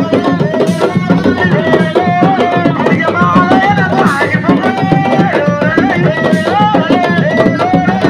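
Sabar drums played fast and continuously, with a singing voice over them.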